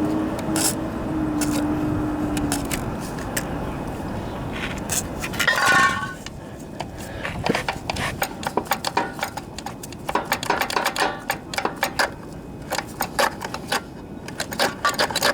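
Hand tools and metal parts clicking and clinking on the trimmer's frame, with quick runs of small sharp clicks through the second half. A short squeak sounds a little before the middle, and a steady hum stops a couple of seconds in.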